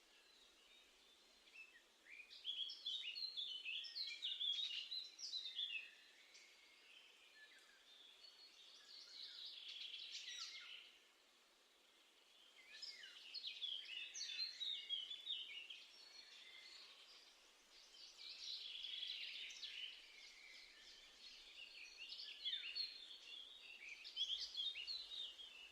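Songbirds singing outdoors: phrases of quick, high, falling notes, each a few seconds long, repeated every few seconds over a faint background hush.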